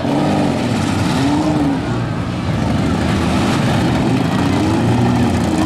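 Several compact cars' engines running and revving at once during a demolition derby heat, their pitch rising and falling.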